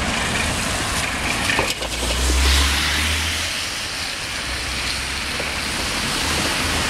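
Electroputere 060-DA (LDE2100) diesel-electric locomotive's Sulzer engine running as it hauls a freight train, under a steady hiss of rain. A low rumble swells for about a second and a half near the middle.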